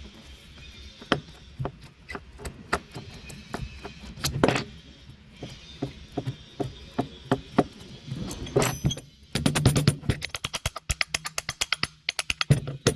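Metal clinks and knocks of hand tools on a car starter motor being taken apart, then a fast run of sharp clicks from about nine seconds in.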